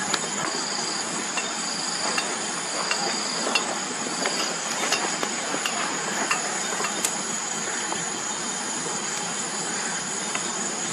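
Wood campfire crackling and hissing, with sharp pops scattered through, over a steady high chirring of night insects.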